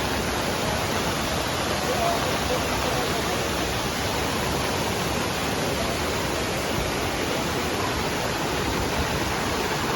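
Waterfall cascade: a steady, even rush of falling water, with faint voices in the background.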